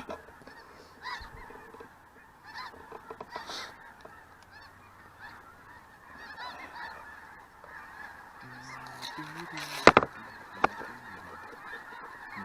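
A large flock of snow geese calling overhead, a continuous din of many overlapping high honks and yelps. About ten seconds in, two sharp loud cracks come close together, then a fainter one.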